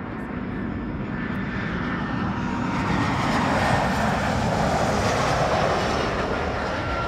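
Narrow-body twin-engine jet airliner on landing approach: a steady jet rumble and whine that swells to its loudest around the middle, then eases slightly.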